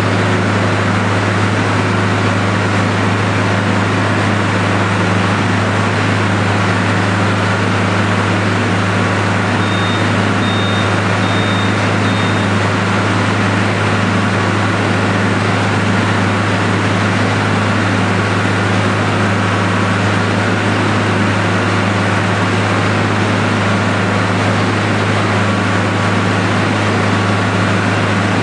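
Penta TMR feed mixer running as its auger turns hay and forage in the tub: a steady, loud low machine drone. A few short high beeps sound about ten seconds in.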